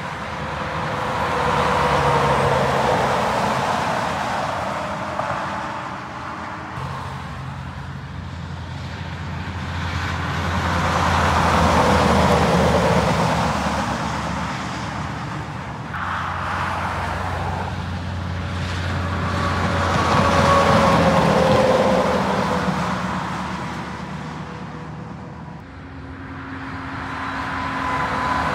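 Heavy trucks passing one after another on a motorway, each swelling up and fading away about every nine to ten seconds. Each pass carries a tyre whine that falls in pitch as it goes by, over a low engine drone.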